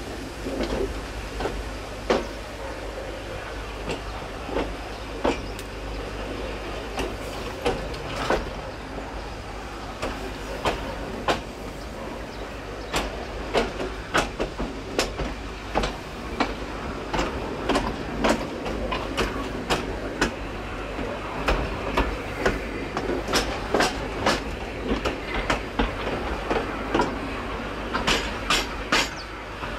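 Train wheels clicking over rail joints and pointwork on a moving train, over a steady low rumble; the clicks come closer together near the end.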